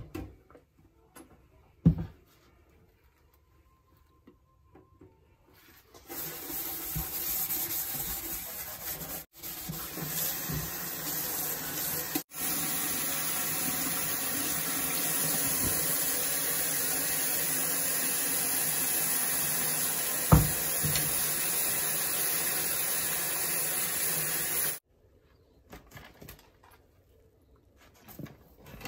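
Water running from a faucet-mounted PUR filter into a stainless steel kitchen sink, a steady splashing with two brief breaks, as the sink fills with soapy water. A few small clicks and knocks come before the water starts and after it stops.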